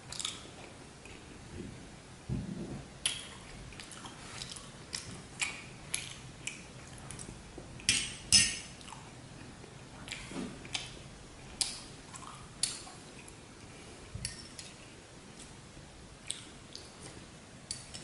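Close-miked chewing and wet mouth sounds of eating a soft, syrupy dessert. Scattered sharp clicks and taps of a metal spoon on ceramic bowls run through it, the loudest pair about eight seconds in.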